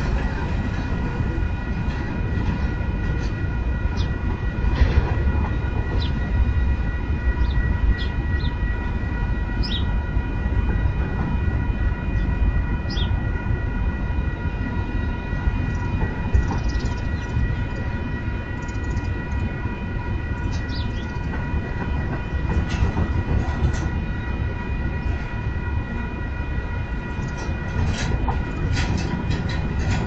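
Freight train cars rolling slowly past: a steady low rumble with scattered wheel clicks and short squeaks, and a few steady high-pitched tones held throughout.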